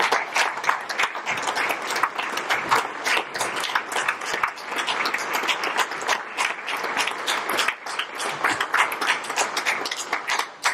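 Audience applauding: many people clapping densely and steadily.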